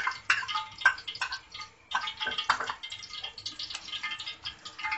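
Metal spoon clinking and scraping against a bowl in quick, irregular strokes while yogurt is stirred into gram flour, with a brief pause just before two seconds in.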